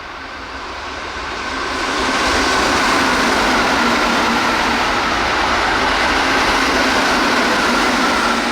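Keihan 8000 series limited express train passing at speed, about 108 km/h. Its wheel-on-rail and running noise swells over the first two seconds, holds loud and steady, and starts to fade near the end, with a faint high whine running through it.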